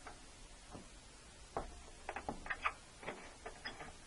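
Scattered light clicks and knocks, most of them bunched together about halfway through, from metal table clamps being handled and tightened on a knitting machine bed.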